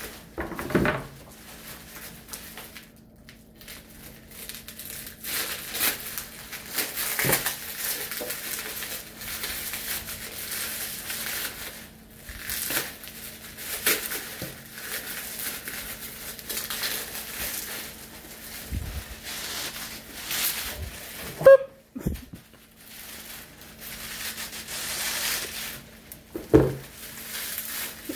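Bubble wrap crinkling and rustling in irregular bursts as it is pulled off a lightsaber hilt, with one sharp, loud snap a little past three quarters of the way through. A faint steady hum runs underneath.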